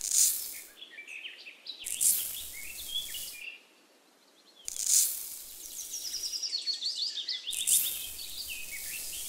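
Dry sand poured from a small plastic bucket in four short hissing pours, with birds chirping throughout.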